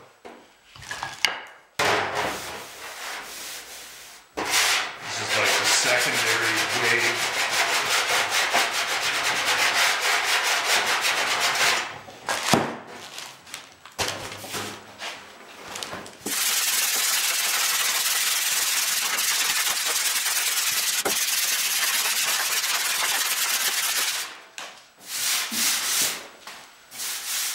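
A long hand sanding block rubbed back and forth with quick strokes over a Citroën DS trunk lid, in two long runs of sanding a few seconds apart. The lid is being block-sanded to show up the high and low spots of a dent repair.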